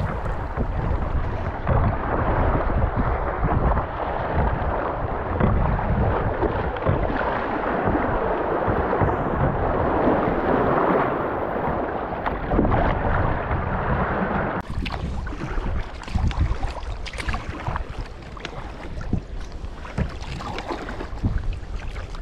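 Sea water washing and splashing around a sea kayak and against the shore rocks, with wind rumbling on the microphone. About fifteen seconds in, the rush gives way to lighter, choppier splashing.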